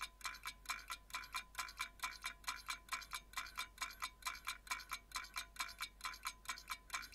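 Countdown timer sound effect: an even run of light, slightly ringing ticks, about four a second.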